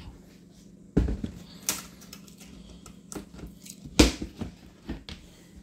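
Several sharp plastic knocks and clicks from a ventilated plastic snake tub being handled: one about a second in, the loudest about four seconds in, and a few smaller ones near the end.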